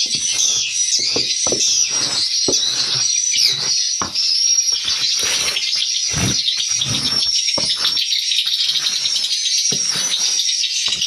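Swiftlets chirping and twittering continuously in a dense, high-pitched chorus, with irregular short low knocks underneath.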